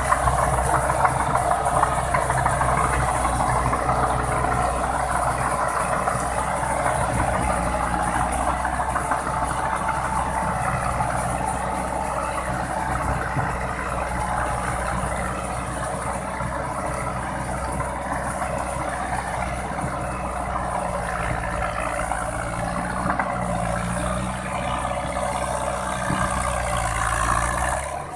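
New Holland tractor on steel crawler tracks, its diesel engine running steadily as it pulls a rotary tiller through a flooded rice paddy; the sound eases slightly as the tractor draws away.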